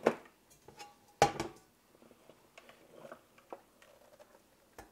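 Kitchenware being handled: a sharp knock, then a louder one about a second in with a short ring after it, followed by lighter clinks and clicks.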